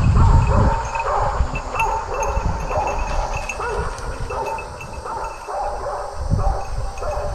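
Hunting dogs barking over and over in short, quick calls. A low rumble on the microphone fills the first second.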